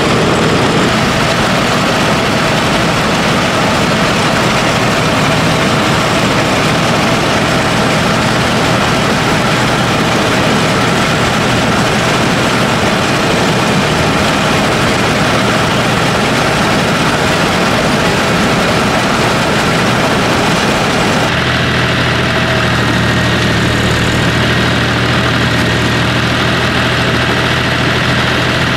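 Diesel engine and machinery of a John Deere combine harvester running steadily. About two-thirds of the way through, the sound abruptly changes to a stronger low hum.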